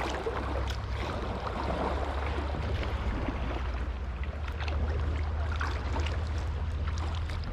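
River water rushing around a kayak running a rapid: a steady noisy wash with a low rumble underneath and scattered small splashes and taps.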